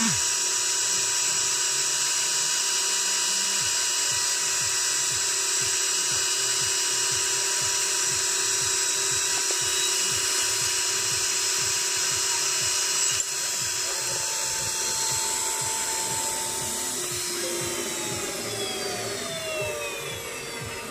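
High-speed spindle of a JewelPro jewellery CNC engraver whining steadily as it cuts a diamond-cut finish into a metal pendant blank. About 13 seconds in, the sound drops abruptly. In the last few seconds the spindle winds down, its pitch falling.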